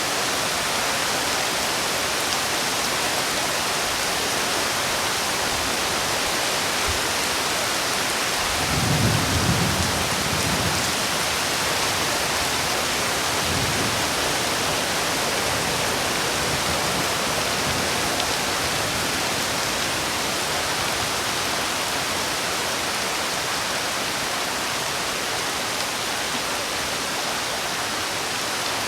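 Heavy rain falling steadily. A low rumble rises about nine seconds in and lasts a couple of seconds, followed by a fainter one a few seconds later.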